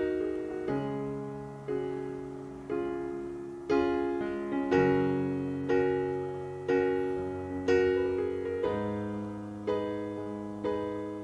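Background music: slow piano chords, one struck about every second and left to fade before the next.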